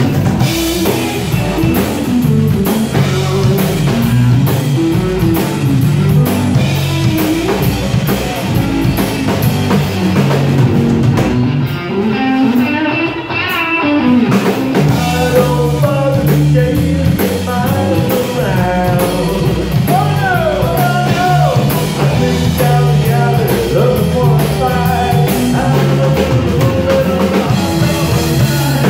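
A live rock band plays an instrumental stretch on electric guitars and drum kit. The cymbals drop out for a couple of seconds about twelve seconds in, and a guitar bends notes about two-thirds of the way through.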